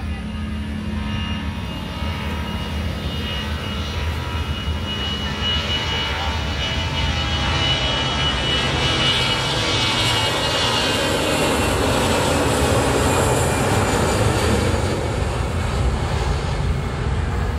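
Airplane engines running at takeoff power: a steady engine noise with a thin high whine that grows louder over the first dozen seconds and then holds.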